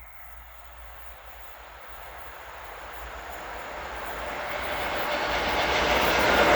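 A train approaching along the track: rumble and wheel-on-rail noise growing steadily louder.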